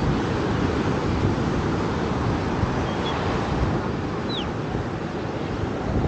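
Surf breaking and washing up a sandy beach, a steady rushing noise, with wind buffeting the microphone. A short high falling chirp sounds about four seconds in.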